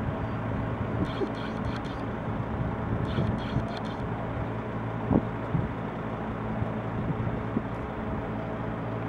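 A motor running steadily, a low even hum, over outdoor noise, with a few faint clicks and knocks.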